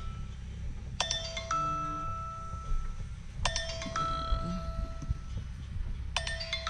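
Smartphone alarm ringing to wake the sleepers: a two-note chime, a low note then a higher one about half a second later, repeating three times about every two and a half seconds over a low steady hum.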